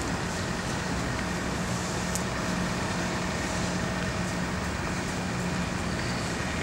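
Steady outdoor background noise: an even hiss and rumble with a low steady hum, such as road traffic gives.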